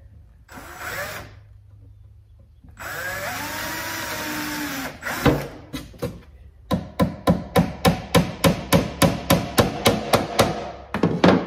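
A cordless drill bores a pilot hole into a wooden drawer back for about two seconds, its motor pitch rising and then falling. A hammer then drives a nail into the wood with a quick run of taps, about four a second, ending in a few harder blows.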